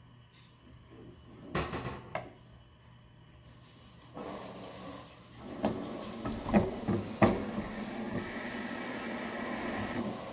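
Sharp knocks and clicks of a plastic fidget spinner being handled and set spinning on a wooden tabletop, a few about one and a half seconds in and a louder cluster from about five and a half seconds in. From about three and a half seconds in a steady hiss runs underneath, cutting off abruptly at the end.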